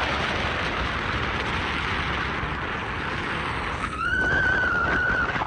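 Wind rushing over the microphone at the open sunroof of a moving car, mixed with road noise. About four seconds in a high held tone with a slightly wavering pitch joins it.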